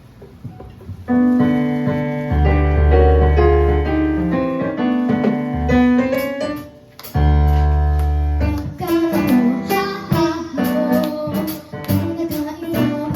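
Live band music led by an electric keyboard playing chords over low bass notes. It starts about a second in and breaks off briefly around the middle, then returns with quick regular cymbal-like ticks added.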